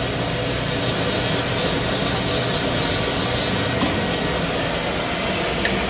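Rod honing machine running steadily, its stone mandrel spinning inside the big-end bore of an H-beam connecting rod as the bore is honed to size for bearing clearance.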